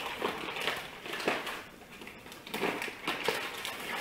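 A paper bag of sugar crinkling as sugar is poured from it into a small metal measuring cup, in two bouts of rustling with small clicks.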